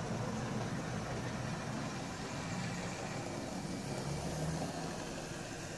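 Bachmann Class 66 OO gauge model diesel locomotive running on the layout track: a steady whirr and hum from its electric motor and gearing, with the rumble of its wheels on the rails. It is DCC Ready with no sound decoder fitted, so what is heard is the running mechanism, not engine sound.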